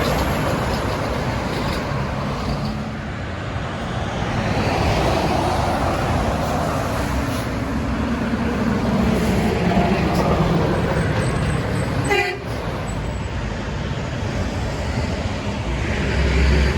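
Highway traffic passing, with steady tyre and engine noise; a heavy truck's engine note swells and fades in the middle. A brief sharp sound comes about three quarters of the way through.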